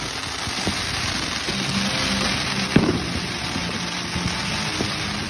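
Handheld Bazooka Torch fountain firework spraying sparks with a steady, dense hiss and crackle. A single sharp firework bang stands out nearly three seconds in, with a few smaller pops around it.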